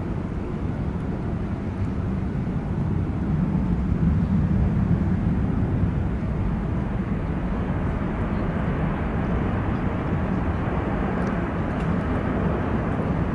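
Airbus A320 jet engines heard from a distance as the airliner rolls out along the runway after touchdown: a steady rushing jet noise that swells a little around four seconds in.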